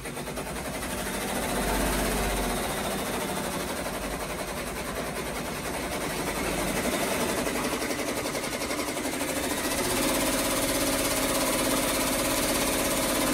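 Brother PR1055X ten-needle and PR670E six-needle embroidery machines stitching together, a rapid, even rattle of needle strokes that runs on without a break.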